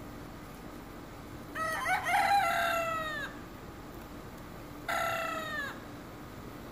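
A rooster crowing twice: a long crow about a second and a half in that falls away at the end, then a shorter crow about five seconds in.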